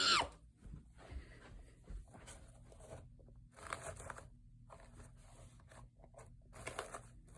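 Faint, scattered rustling and scraping of things being handled, in short bursts with quiet gaps between them.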